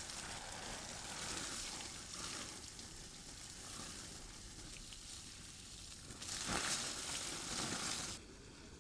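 Water spraying from a garden hose onto cabbage leaves and soil: a steady noisy spatter that gets louder for a couple of seconds near the end, then drops away suddenly.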